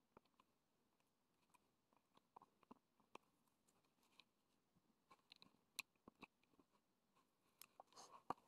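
Near silence with scattered faint short clicks and taps, a few more of them past the middle and toward the end.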